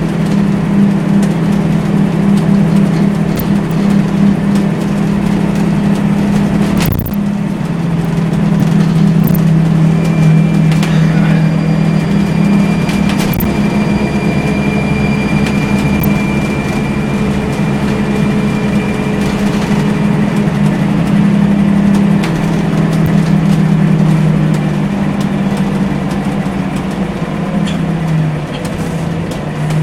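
Scania L94UB bus's CNG engine running steadily under way, heard inside the passenger cabin as a steady low drone. There is one sharp knock about seven seconds in, and a thin high steady tone for about ten seconds midway.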